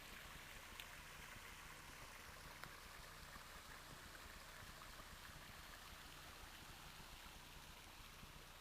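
Faint, steady rushing of a small mountain stream.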